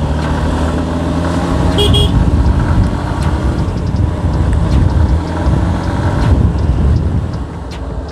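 Hero Xtreme 160R motorcycle's single-cylinder engine running while riding through traffic, with one short horn beep about two seconds in. The engine gets louder through the middle and drops back near the end.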